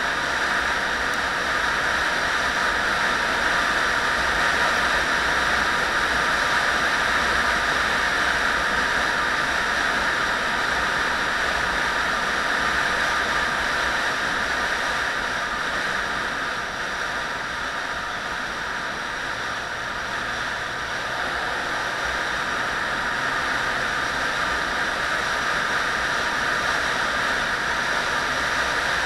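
Steady rushing of wind and road noise on a camera fixed to a vehicle moving along a narrow tarmac road.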